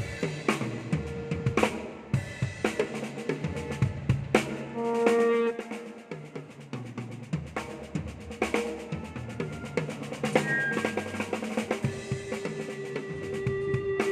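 Drum kit being played in a sound check: snare, kick drum and rimshot hits in loose, changing patterns. Held pitched notes from another instrument sound briefly about five seconds in and again near the end.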